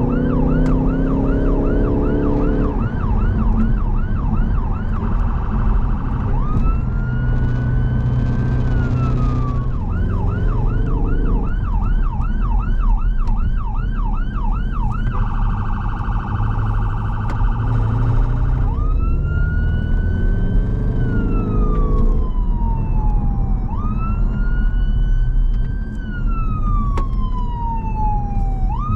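Emergency response car's electronic siren cycling through its tones: a fast yelp of about three sweeps a second, a slow wail that rises and falls over a few seconds, and a rapid warbling tone. It is heard from inside the car over engine and road noise, and the engine climbs in pitch three times as the car accelerates.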